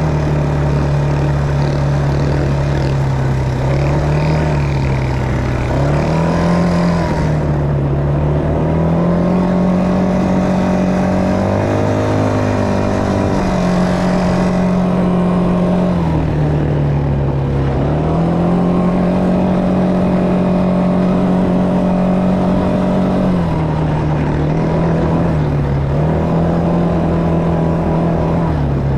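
ATV engine running as the quad rides along a dirt track: a steady drone whose pitch rises and falls several times as the throttle is opened and eased, with a brief dip and climb about twelve seconds in.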